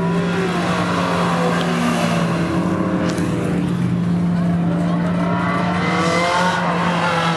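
Sports car engines running and revving as cars drive slowly past, with the revs rising and falling repeatedly, most around the middle to late part. A steady low hum runs underneath.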